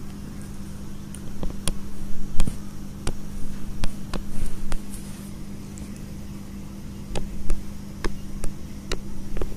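Irregular sharp taps and clicks of a stylus on a tablet as freehand pen strokes are drawn, in two clusters, over a steady low electrical hum.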